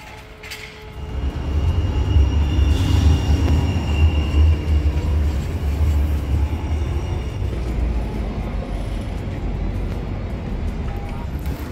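Sheffield Supertram tram passing close by: a loud low rumble from its wheels and running gear on the street rails sets in about a second in and carries on steadily. A thin high whine is heard briefly a few seconds in.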